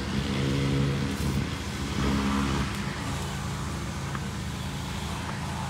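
An engine running, louder for the first three seconds and then easing down to a lower steady hum.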